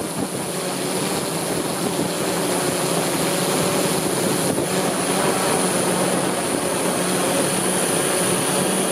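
DJI S1000 octocopter's eight motors and propellers running steadily in flight, a continuous buzzing hum with a thin, high, steady whine over it.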